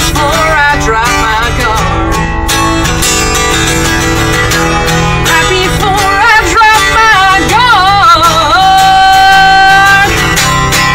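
A woman singing a country song to her own strummed acoustic guitar, her voice wavering through runs and then holding one long note near the end.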